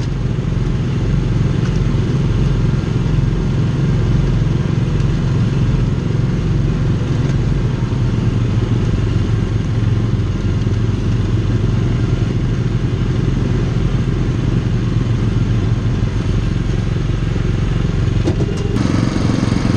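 John Deere Gator utility vehicle's engine running steadily while the mounted soil sampler is worked. It picks up a little near the end.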